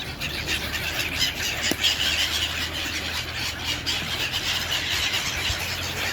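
Many seagulls calling at once, their high cries overlapping without a break.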